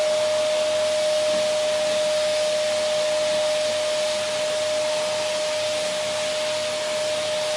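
Vacuum cleaner running steadily: a constant rushing hiss of air with a steady whine on one pitch above it.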